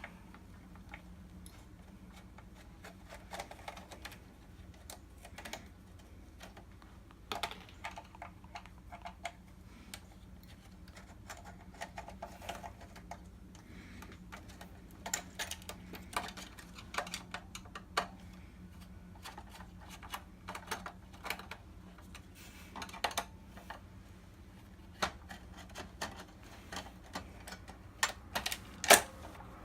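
Irregular clicks, taps and light clatter of plastic and metal projector parts being handled and pried apart during a teardown, with two sharper clacks near the end. A faint steady hum runs underneath.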